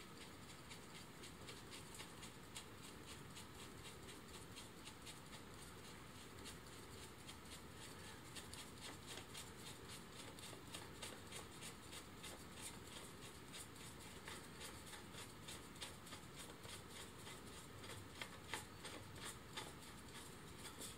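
Faint, quick small clicks and light handling noise from a cordless drill's keyless chuck and a bit attachment being turned by hand. The clicks grow busier about midway, with a few sharper ones near the end and a louder knock at the very end.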